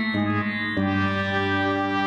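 Music: a short synthesized brass-like sting with notes stepping down in pitch, ending on one long held note.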